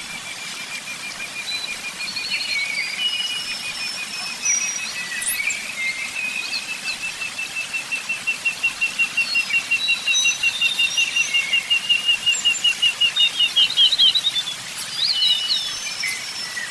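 Several songbirds chirping. One bird repeats a long run of short, evenly spaced notes that grows louder, quicker and a little higher, ending in a fast trill near the end, while others add scattered higher chirps and whistles.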